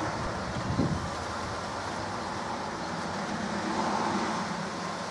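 Steady hiss of light rain falling outdoors, with a brief knock just under a second in and a swell of noise around four seconds in.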